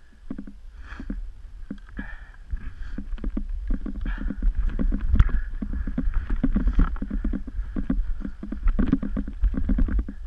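Skis and boots crunching and scraping through snow in quick irregular strokes as a skier works down steep terrain, with wind rumbling on the microphone. It grows louder after the first couple of seconds.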